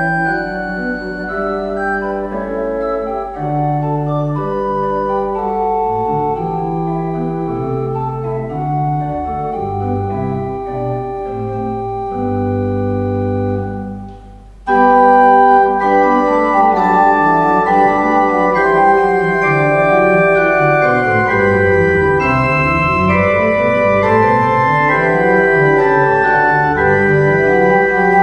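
Church organ playing held chords. About halfway it drops away briefly, then comes back suddenly louder and fuller, with lines moving up and down in the bass.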